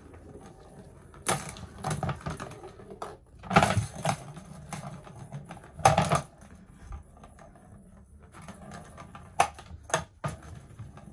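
Plastic ball-track cat toy clacking and rattling as a cat paws at the ball in its circular track. The clacks come irregularly every second or so, with a few louder clatters.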